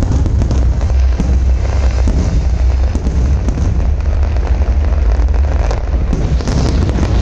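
Fireworks display going off continuously: a dense run of bangs and crackling pops over a heavy, unbroken low rumble.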